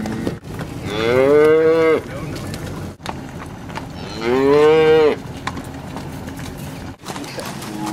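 Black Angus cows mooing: two long moos about three seconds apart, each about a second long, rising then falling in pitch.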